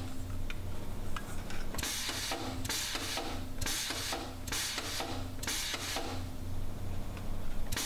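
HDAS-4 air-operated sheet metal shrinker cycling steadily, about one stroke a second, its jaws clamping and shrinking an aluminum flange as it is fed through. The strokes come more strongly from about two seconds in.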